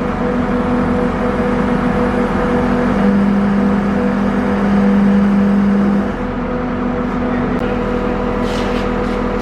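Diesel engine of the lifting machine running steadily, with a stronger low hum from about three to six seconds in while it lifts the implement under hydraulic load.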